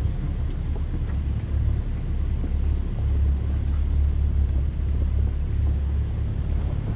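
Low, steady rumble of an off-road SUV's engine and drivetrain as it crawls along a rocky dirt trail, getting a little louder about three seconds in, with a few faint knocks.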